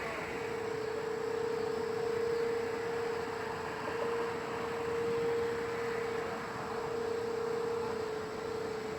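Whelen outdoor warning sirens sounding a steady tone, the alert for a tornado warning. The tone holds one pitch while its loudness slowly swells and fades.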